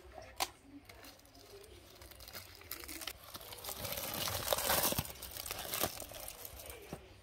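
Aluminium foil and dry banana leaves crinkling and tearing as hands unwrap a cooked bougna. The crackling builds to its loudest about four to five seconds in, with a sharp single crackle about half a second in.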